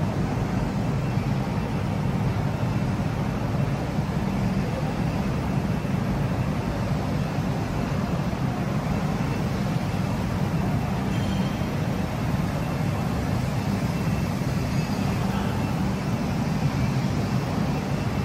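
Steady low rumble of factory-hall background noise, even throughout with no distinct knocks or voices.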